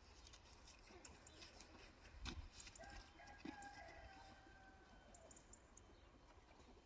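Quiet farmyard with a faint rooster crow, one drawn-out call of about two and a half seconds near the middle, preceded by a couple of soft knocks.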